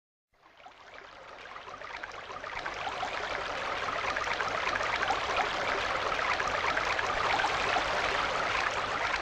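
A rushing, crackling noise like flowing water, fading in and building louder over the first few seconds, then cutting off abruptly at the end.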